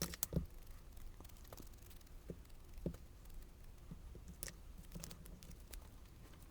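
Scattered small clicks and taps with faint paper rustling as papercraft pieces are handled and pressed down on a work surface; the loudest taps come right at the start and again about three seconds in.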